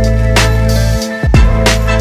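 Background music with a steady drum beat: deep kick drums and sharper hits over held bass notes and chords.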